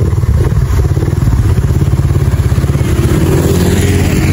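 Motorcycle engine running close by under way, with a fast, even beat that rises in pitch a little about three seconds in.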